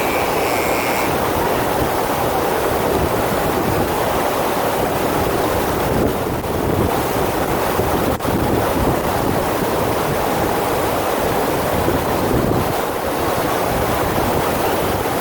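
Steady rush of water from a FlowRider standing-wave machine, a thin sheet of water pumped at speed over its padded surface. There is a brief dip about eight seconds in.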